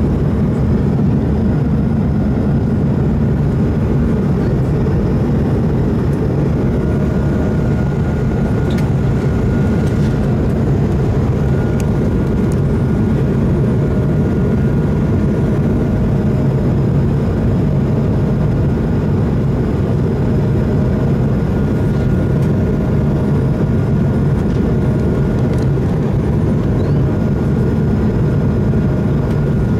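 Steady cabin noise inside an Airbus A220-300 with Pratt & Whitney PW1500G geared turbofans: a continuous low drone with a faint steady whine above it.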